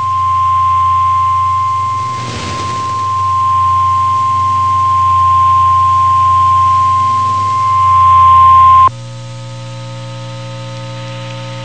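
NOAA Weather Radio's 1050 Hz warning alarm tone: one loud, steady tone over radio hiss and hum, cutting off suddenly about nine seconds in, after which only the hiss and hum remain. The tone signals that a warning broadcast, here a severe thunderstorm warning, is about to follow.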